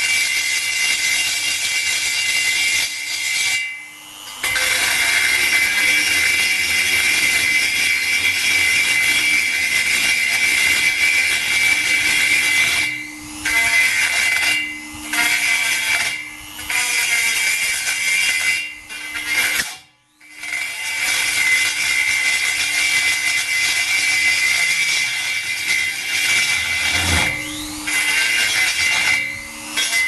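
Handheld rotary grinder with a burr grinding through the steel wall of an LPG gas cylinder, opening up a ring of drilled holes into one hole. It runs with a high steady whine, and is let off briefly several times, its pitch falling and rising again as it slows and spins back up.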